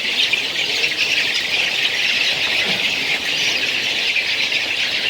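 Continuous din of a large flock of caged laying hens, many birds clucking and squawking over one another.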